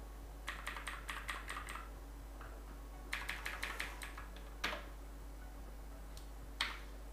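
Computer keyboard typing: two quick runs of keystrokes, then two single, sharper clicks near the end.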